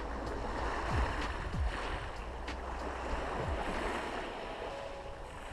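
Small waves washing onto a pebble beach, a steady hiss that swells and eases, with a few low thumps of wind or handling on the microphone.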